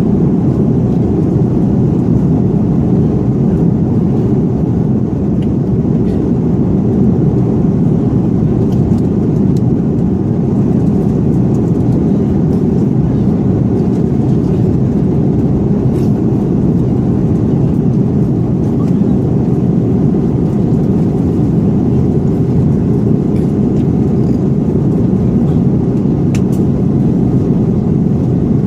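Airbus A330-300 airliner cabin noise in flight: a loud, even rumble of engines and rushing air, heard from inside the cabin during the descent.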